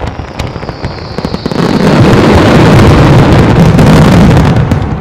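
Fireworks: a rapid run of pops that swells about a second and a half in into a dense, continuous crackle of reports lasting about three seconds, then eases off near the end. A falling whistle sounds over the first couple of seconds.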